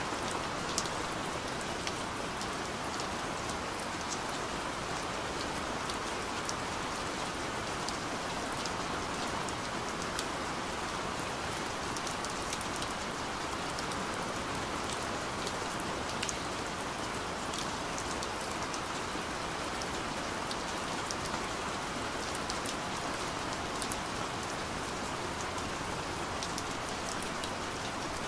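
Steady rain falling: an even hiss with scattered sharp ticks of single drops landing.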